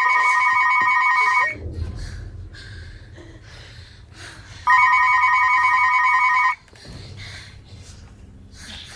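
Telephone ringing with an electronic warbling ring. One ring ends about a second and a half in, and the next sounds for about two seconds from near the middle. A low rumble fills the gaps between rings.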